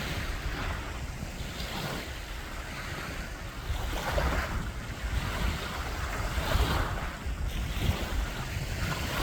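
Small waves washing onto a Lake Superior beach, swelling and falling back a few times, with wind rumbling on the microphone.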